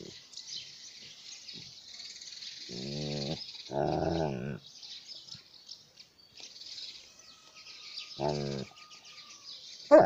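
Alaskan malamute growling and grumbling in play with a toy, in short pitched bursts: one about three seconds in, a louder, higher one just after four seconds, a brief one about eight seconds in, and a loud one starting right at the end. Under it runs a steady high hiss.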